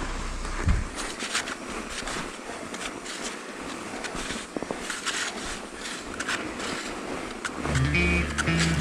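Mountain bike on a downhill trail: a steady rush of wind and tyre noise with frequent clicks and rattles from the bike, and a thump about a second in. Background music comes in near the end.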